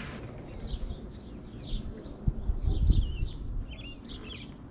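Songbirds singing, a quick run of short chirps and warbling notes. A few dull low thumps come about two to three seconds in.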